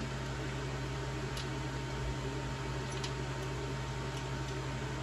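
Steady low hum and hiss of room background noise, with a few faint clicks as chair parts are handled during assembly.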